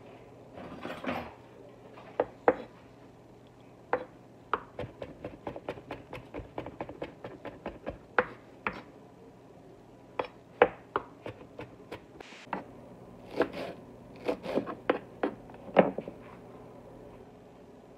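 Kitchen knife chopping greens on a bamboo cutting board: irregular sharp knocks, a quick run of light taps a few seconds in, and a few harder strikes near the end.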